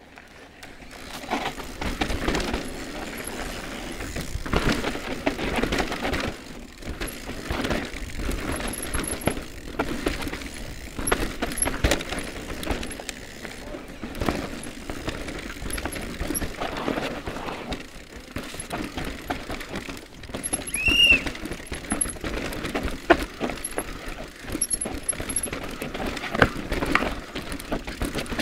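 Electric mountain bike (Cube Stereo Hybrid) ridden hard down a rough, rooty and rocky forest trail: a continuous clatter of tyres over dirt, roots and rocks with the bike's chain and parts rattling and frequent sharp knocks from impacts. It starts quieter and builds within the first two seconds as the bike gets going, and a short squeak rings out about three quarters of the way through.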